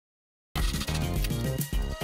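Silence, then background music starts abruptly about half a second in, with a recurring low beat.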